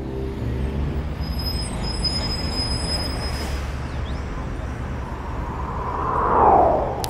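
A piano beat fades out in the first second, leaving a steady low rumble of city traffic. Near the end a vehicle passes, swelling and dropping in pitch as it goes by.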